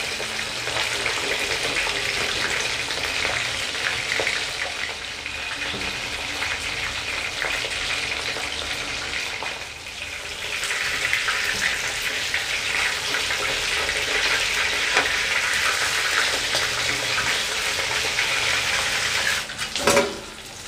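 Marinated rohu fish pieces sizzling as they fry in hot oil in a kadhai, with a slotted spatula scraping as it turns them. The sizzle dips briefly about halfway, and near the end it stops with a short clatter.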